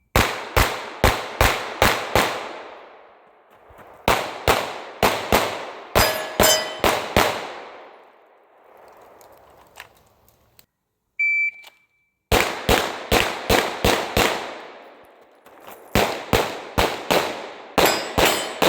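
Shadow Systems CR920P 9mm pistol fired in quick strings of shots, about three a second, with short pauses between targets. About 11 seconds in a shot-timer beeps to start a run, and more strings follow. About six seconds in, a hit rings on a steel plate.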